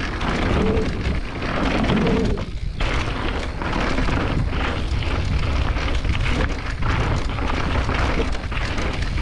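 Wind buffeting an action-camera microphone during a fast mountain-bike descent, with a steady low rumble and the rattle of tyres and bike over a rough dirt trail.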